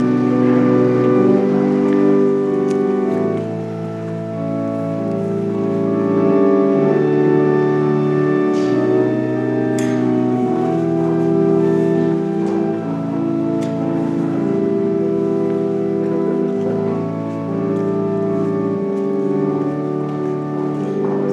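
Church organ playing a slow piece in long sustained chords, the bass note changing every few seconds.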